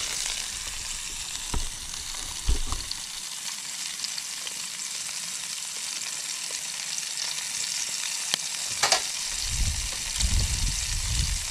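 Tomatoes and capsicum frying in a pan on a small camp stove: a steady sizzling hiss. A couple of light knocks come about two seconds in, and a low rumble near the end.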